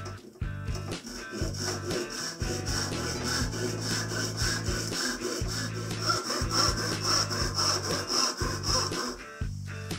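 Irwin handsaw cutting across a thin strip of timber in rhythmic back-and-forth strokes.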